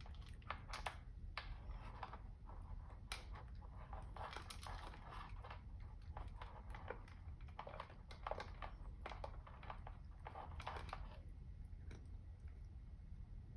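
Cat crunching dry kibble: irregular bursts of small, crisp crunches as it chews, at a low level over a steady low hum.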